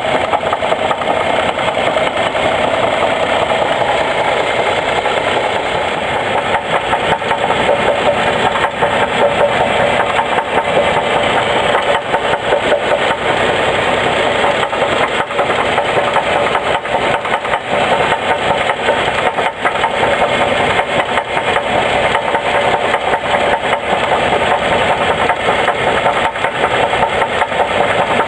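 A 2002 Chevy Trailblazer's 4.2-litre inline-six engine running steadily with a rapid, even knocking, while the belt tensioner jumps with each knock.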